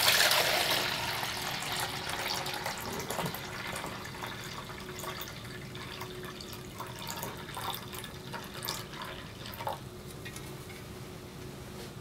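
Water poured in a stream into a plastic measuring beaker, filling it toward the one-litre mark: splashing loudest at the start, then running quieter as the beaker fills, and stopping near the end.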